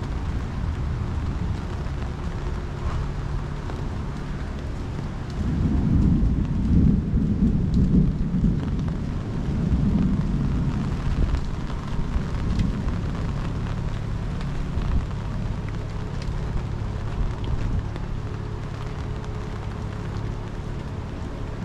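Rain falling steadily, with a long rumble of thunder that swells about five seconds in and dies away over several seconds.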